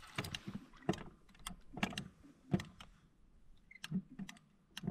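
A dozen or so irregular sharp clicks and light knocks, spaced unevenly with short pauses between them.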